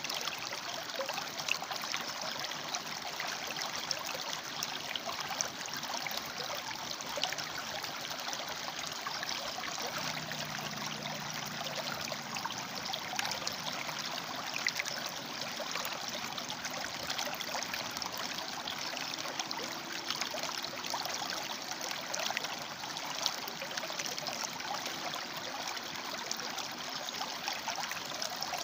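River water flowing and splashing over rocks: a steady rush with many small splashes.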